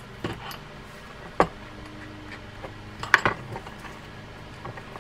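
Small metal fishing-reel parts clicking and clinking as they are handled and fitted onto a Penn Squall II reel's star drag side. There are a few sharp clicks, the loudest about a second and a half in and just after three seconds.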